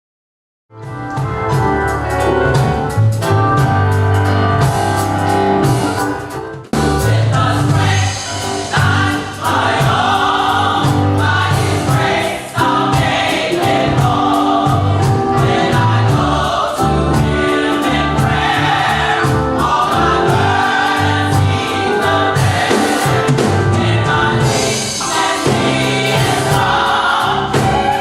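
Gospel choir singing, starting about a second in.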